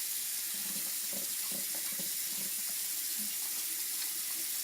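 Water running steadily from a tap into a sink while hands are washed under it.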